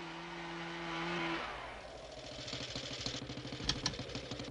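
Snowmobile engine: a steady drone that slides down and drops away about a second and a half in, then a rapid, even putter of about ten beats a second as it ticks over. Two sharp clicks come near the middle.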